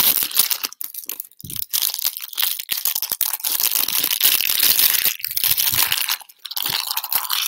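Packaging of a tarot card deck crinkling and crackling as it is handled, in a rapid run of small crackles with a few brief breaks.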